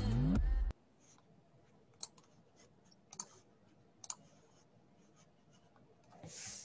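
Intro music with a rising sweep cuts off suddenly under a second in. Then comes near silence broken by a few sharp computer mouse clicks about a second apart.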